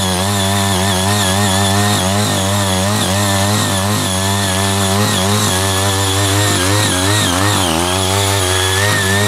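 CY80 power tiller's small engine running under load as its rotary tines break up clods of soil. The engine speed wavers throughout and dips briefly about seven seconds in before picking back up.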